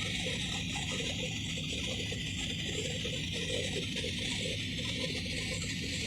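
Steady hiss and rumble of airliner cabin noise.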